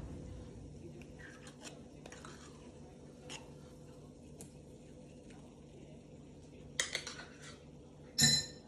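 Onions sautéing in a Thermomix bowl under a steady faint hum, broken by light clinks and clatters of dishes and utensils, with louder clatters about seven seconds in and again near the end.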